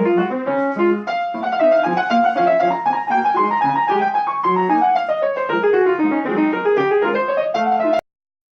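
Piano music: quick running lines of notes rising and falling over a lower accompaniment, cutting off suddenly near the end.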